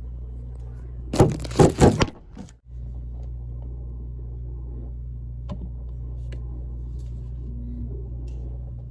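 A steady low hum, with a loud burst of clattering knocks and rustling about a second in that lasts under a second.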